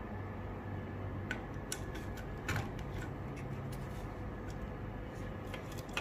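Small plastic clicks and ticks as a clear-cased Omron MY2N-J plug-in relay is handled and pushed into its socket base, the loudest snap about two and a half seconds in, over a steady low hum.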